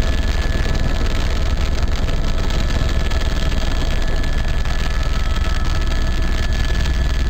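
Cabin noise of a small sightseeing aircraft in flight: a steady engine drone with a heavy low rumble and a few faint whining tones held above it.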